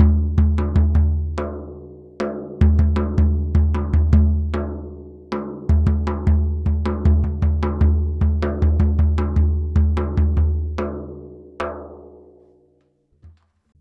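Frame drum played by hand: deep, ringing bass strokes every few seconds under a quick run of sharper, lighter strokes. It dies away near the end.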